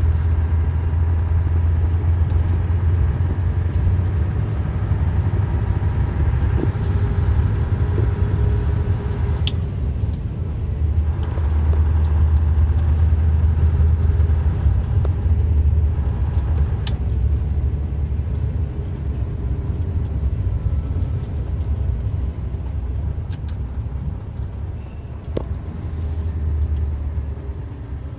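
Vehicle driving on a snow-packed road, heard from inside the cabin: a steady low engine and tyre rumble with a faint hum above it, and a couple of sharp clicks, one about ten seconds in and another about seven seconds later.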